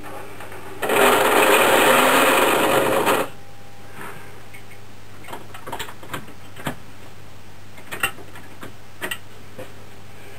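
Lionel Burro crane's small electric motor and gears running for about two seconds, then stopping. Scattered light clicks and taps follow as the plastic crane is handled, over a steady low hum.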